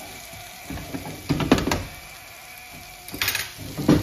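A metal fork scraping and knocking pieces of fried chicken around a nonstick grill pan: a run of clattering strokes about a second in, then a sharp metallic clink about three seconds in and another knock near the end as the pan is handled.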